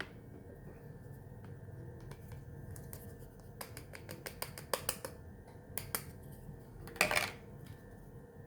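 A run of light, sharp clicks and taps, as of small hard parts being handled, followed about seven seconds in by one louder, short scraping rasp.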